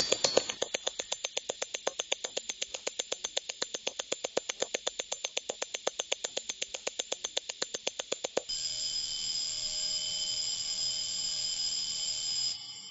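A composition built from watch-manufacturing sounds: rapid, evenly spaced mechanical clicking, about seven clicks a second. Some eight seconds in it switches abruptly to a steady hiss with a few held high tones, which falls away near the end.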